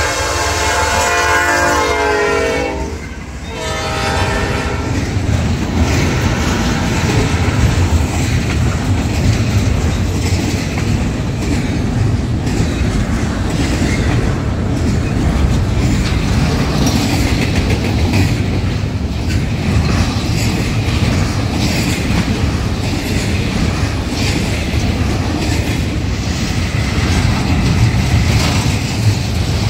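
Freight locomotive's multi-note air horn sounding a chord that stops about three seconds in, with a shorter, weaker blast just after. Then a double-stack intermodal train's cars roll past with steady wheel clatter and rumble.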